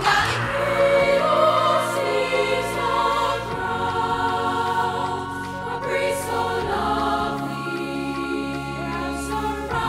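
A teenage girls' choir singing together in several sustained, layered parts into microphones, over a steady low accompaniment.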